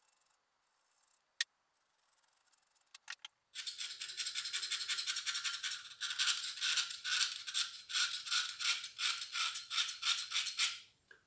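Screwdriver tip scraping the seal bore of a Ford 351 Windsor–based OMC 235 V8's timing cover, cleaning out old deposits. A few light clicks come first; about three and a half seconds in, quick, even scraping strokes start at about four a second and stop just before the end.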